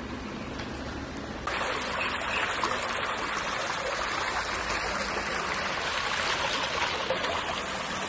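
Shallow stream of water running over rocks, a steady rushing noise that comes in suddenly about a second and a half in.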